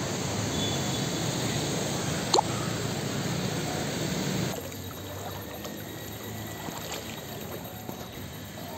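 Floodwater trickling and lapping, with one brief sharp click about two seconds in; the water sound drops to a quieter level about halfway through.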